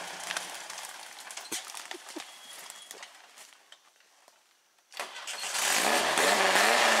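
A rail buggy's Volkswagen engine winds down and cuts out, leaving a few light clicks and knocks in near quiet. About five seconds in it restarts suddenly and runs again, its revs rising and falling.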